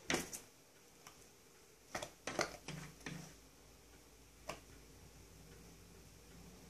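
A Ragdoll cat's paws knocking and tapping against a glass door: a sharp knock right at the start, a cluster of taps and knocks around two to three seconds in, and a last tap about four and a half seconds in.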